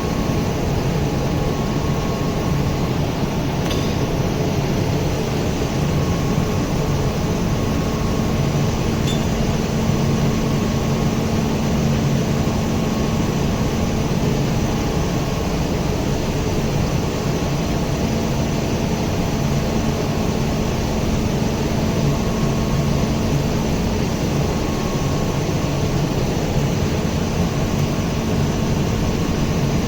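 Steady hum of running machinery, with several constant tones over an even noise, unchanging throughout, and a faint clink or two.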